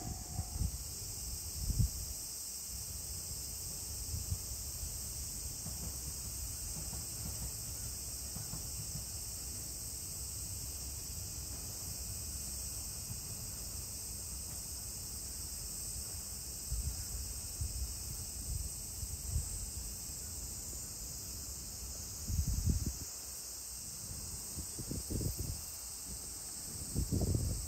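A steady, high chorus of summer insects shrilling without a break, with irregular low rumbles now and then, strongest near the end.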